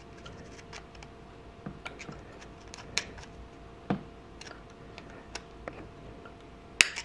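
Small metal clicks and scrapes of a circlip being pried and pushed into its groove in a motorcycle rear brake master cylinder bore with a small pointed tool. The sharpest click comes just before the end.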